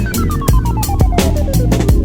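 Electronic dance music with a heavy drum beat and bass, and a synth tone sliding steadily downward in pitch.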